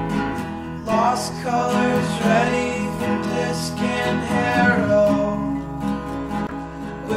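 Background music: a song on strummed acoustic guitar, with a melody line coming in about a second in.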